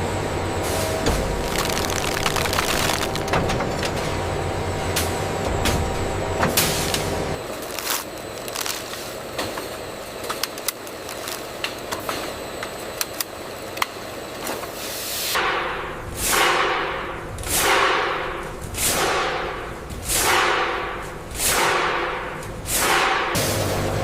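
Factory production-line machinery running with a clattering rumble, then lighter ticking. After that comes a regular series of about seven hissing whooshes, each falling in pitch, roughly one every second and a half, like pneumatic air bursts.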